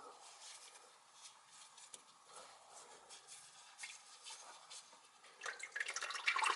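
Faint clicks and scrapes as the oil filter of a 2006 Honda Civic Si is unscrewed by hand. Near the end, oil starts spilling and dripping from the loosened filter into a drain bucket in a quick, growing patter.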